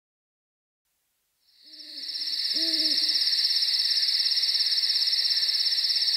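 After about a second and a half of silence, an owl hoots twice: two short hoots. Crickets start chirping as the owl calls, a steady high, rapidly pulsing trill, as a cartoon night-time sound effect.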